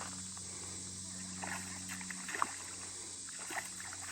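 Outdoor creekside ambience: a steady high hiss with a low steady hum beneath, and a few faint short ticks and knocks.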